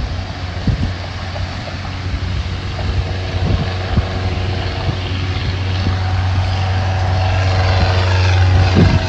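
Propeller airplane's engine droning steadily, growing louder as it comes closer, with wind buffeting the microphone.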